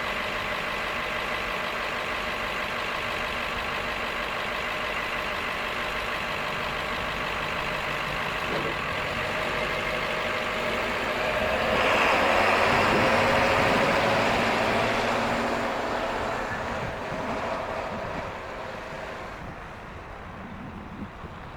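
School bus diesel engine idling steadily, then growing louder and revving up about halfway through as the bus pulls away, the sound fading as it moves off.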